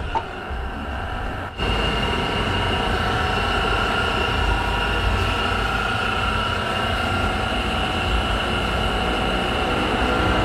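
A machine running steadily, a low hum with a high whine over it, which starts abruptly about a second and a half in.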